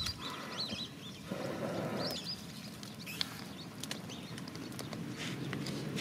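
Small birds chirping in the background while a small fire of dry leaves and sticks is blown on to catch, with a short breathy blow about a second in and scattered light crackles and rustles of the dry wood and leaves.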